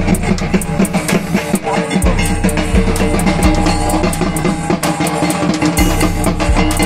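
Loud music with a fast, steady drum beat and sustained low bass notes.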